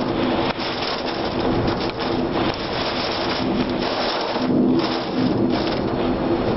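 Tornado winds and rain roaring against the microphone, a dense rough noise that surges and eases, with a steady low hum underneath that swells about two-thirds of the way through.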